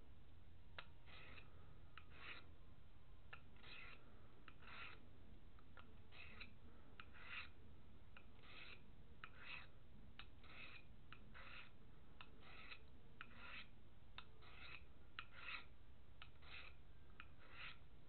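Pocket knife blade drawn across a hand-held sharpening plate: faint, short scraping strokes repeated more than a dozen times, with small clicks between them.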